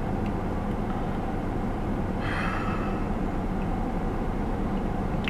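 Steady low hum inside a car's cabin, with a short breathy sound a little over two seconds in.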